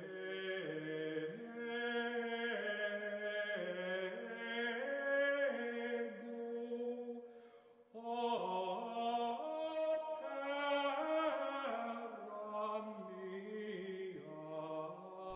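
Male voices chanting a slow melody in unison, holding each note and stepping from one to the next, with a brief break about halfway through.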